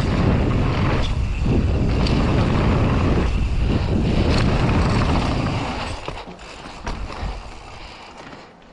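Mountain bike ridden fast down a dirt bike-park trail: steady wind rush on the microphone with tyre and bike rattle and scattered sharp clicks. The rush dies away about six seconds in as the bike slows, leaving a few knocks.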